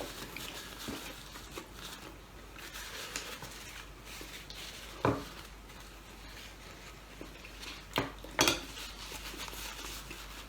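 Cutlery clinking against plates and dishes while eating, with a few sharp clinks, one about five seconds in and two close together near eight seconds.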